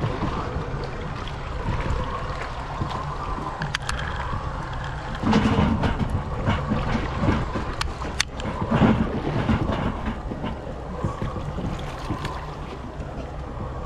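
Wind buffeting the microphone on a small fishing boat on open water, with a steady low rumble. A few sharp knocks come about 4 s and 8 s in.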